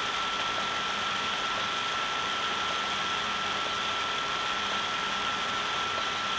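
Steady background hiss with a faint constant high-pitched tone and a low hum, unchanging throughout: room tone.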